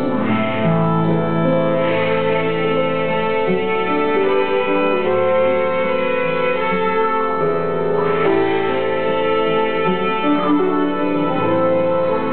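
Live acid-folk band playing an instrumental passage without singing. A bowed violin carries long, sustained notes over harp and acoustic and electric guitars.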